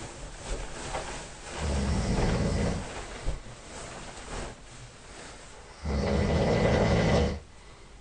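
A sleeping person snoring loudly: two long snores about four seconds apart, each lasting over a second, with quieter breathing between them.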